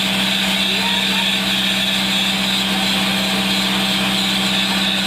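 An engine running steadily at a constant pitch, a loud even hum with a steady high hiss over it.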